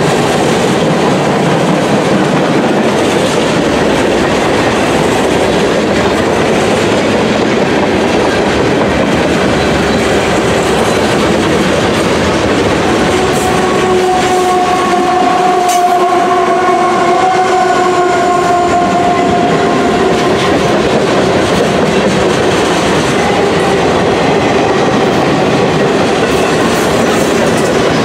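Long CSX freight train rolling past: a steady, loud rumble of wheels on rail with clickety-clack. Around the middle, as the mid-train GE diesel locomotives go by, a steady pitched whine rises over the rolling noise for about six seconds.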